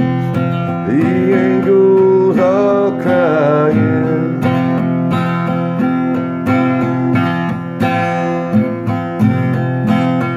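Acoustic guitar strummed steadily in a country-style song. A man's voice sings drawn-out, wavering notes over it for the first few seconds, then the guitar carries on alone.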